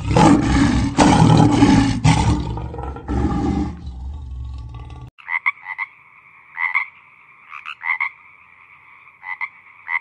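A lion roaring loudly for about four seconds, cut off abruptly. Then a frog calling: a steady high buzz broken by about eight short, sharp croaks.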